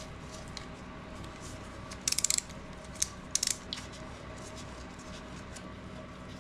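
Hand tool working the brake pad retaining pin loose on a Brembo front brake caliper: two short bursts of rapid metallic clicks about a second apart, with a single click between them.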